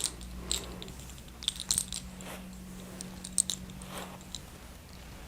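Hands massaging the scalp and working through the hair, with a scatter of small crackling clicks.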